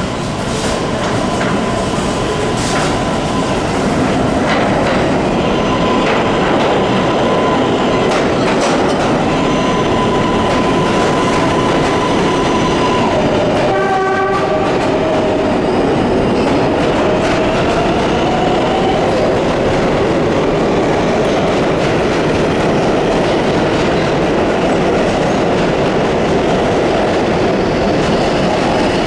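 New York City subway train running past, wheels clattering over the rails. A steady high whine fills the first half, and a short horn blast sounds about halfway through.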